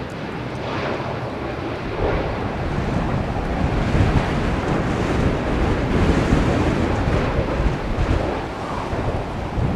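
Gale-force wind buffeting the microphone in uneven gusts, over the engine roar of a Gulfstream business jet on its landing roll.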